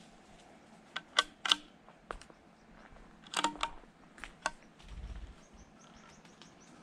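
Sharp mechanical clicks and knocks from a .22 hunting rifle being handled, in two quick clusters about two seconds apart. A low bump follows, then faint high chirps near the end.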